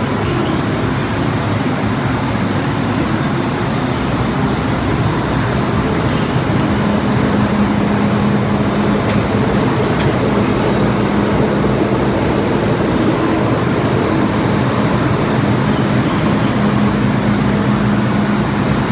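Hong Kong MTR M-Train pulling into an underground platform and coming to a stop: a steady rumble of wheels and running gear, with a low hum in parts and a single click about halfway through.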